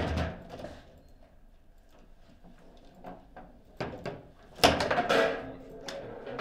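Foosball table knocks: the hard ball and the player rods clack sharply. There is a burst of clacks at the start and a few light knocks around three to four seconds in. The loudest bang, with a short ring, comes about four and a half seconds in, around a goal being scored and the ball taken out of the goal.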